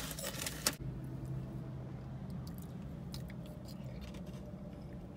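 Cheez-It Snap'd cheese crackers bitten with two sharp crunches in the first second, then faint crunchy chewing over a low steady hum.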